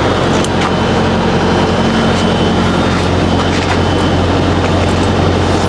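Semi-truck diesel engine idling steadily, with a few faint clicks over it.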